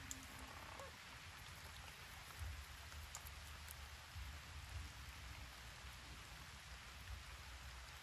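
Faint steady outdoor hiss, with low rumbles now and then and a few faint high ticks.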